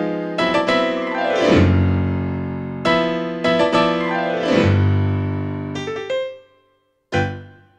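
Digital piano playing a solo tango piece: two fast runs sweep down into low bass notes, then a short chord dies away to silence, and one more short, sharp chord sounds about seven seconds in.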